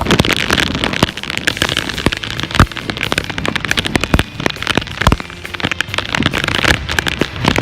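Heavy rain in strong wind, the drops striking close by in a dense run of sharp crackling hits over a steady rush of noise.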